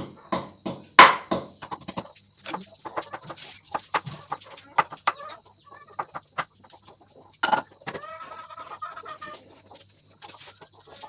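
Chickens clucking, with a longer drawn-out call about eight seconds in, among short sharp knocks.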